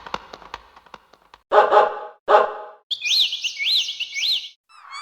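Animal-call sound effects in sequence: two short, harsh calls about half a second apart, followed by a high chirping call that swoops up and down three times.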